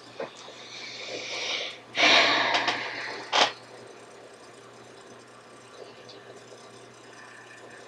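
Breathy noise close to the microphone, loudest for about a second and a half from two seconds in and ending in a short sharp knock, then only a low steady electrical hum.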